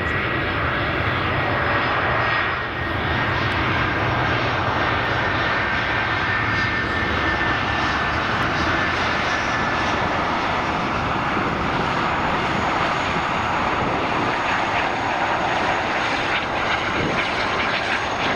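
Jet airliner engines running loud and steady, a broad rushing roar with a faint high whine that fades over the first several seconds.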